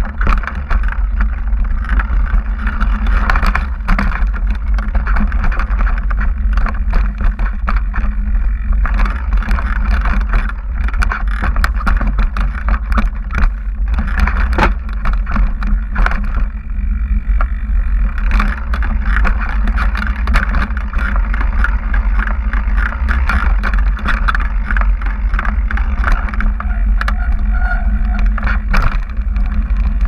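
Mountain bike riding fast over a rough rock and dirt trail: constant rattling and sharp knocks from the bike over bumps, over a heavy rumble of wind buffeting the microphone.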